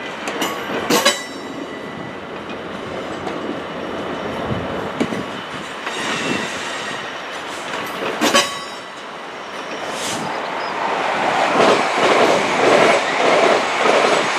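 A train moving slowly on the rails, reversing into the yard. Brief high wheel squeals come about a second in and again past the halfway mark. Then, near the end, a louder even clatter of wheels over rail joints, about one and a half beats a second.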